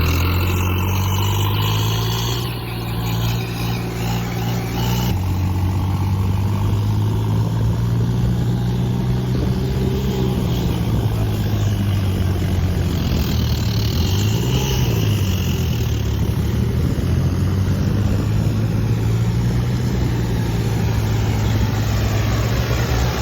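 Heavy diesel engine running steadily under load. The sound changes abruptly about five seconds in, and the engine briefly drops and rises in pitch around the middle.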